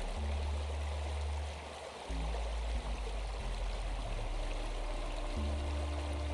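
Steady rush of flowing water like a stream, laid over soft, low sustained synth notes that change every few seconds.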